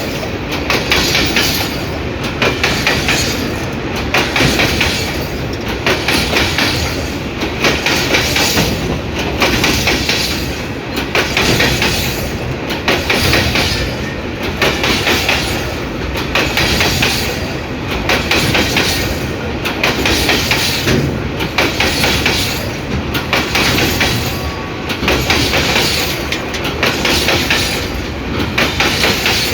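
Empty freight wagons rolling past on the track, with a steady rumble and a clattering of wheels over rail joints that surges in a regular rhythm about every two seconds as each wagon's wheelsets go by.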